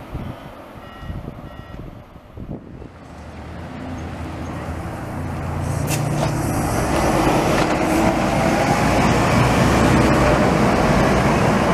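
A SEPTA New Flyer low-floor city bus pulling away: its engine builds up and gets louder from about three seconds in, then runs on loudly with road noise as it drives off. A few short high beeps sound in the quieter first two seconds.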